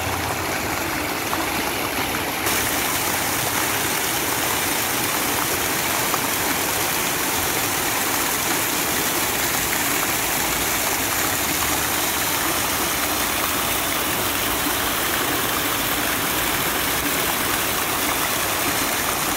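Fountain water splashing: several vertical jets and a central spray falling back into a stone basin pool, a steady, unbroken splashing of water that grows slightly hissier about two seconds in.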